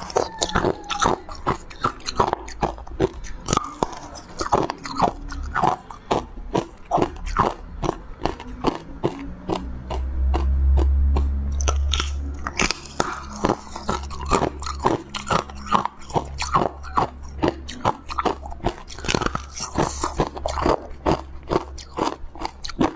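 Close-up crunching of frozen blue ice being bitten and chewed, sharp crunches coming about two a second. A low rumble runs for a couple of seconds near the middle.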